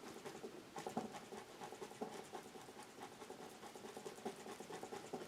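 Paintbrush working acrylic paint on canvas: faint, irregular scratching and light taps of the bristles.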